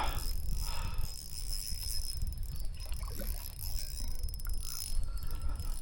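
Low wind rumble on the microphone, with scattered faint clicks and small knocks from handling gear while a fish is landed in a kayak.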